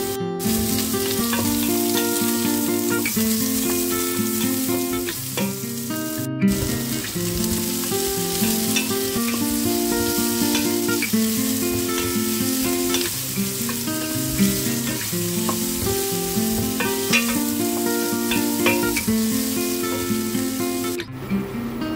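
Chopped onion, red bell pepper, garlic and ginger sizzling as they sauté in a stainless steel pot, with stirring from a wooden spatula. Background music plays throughout.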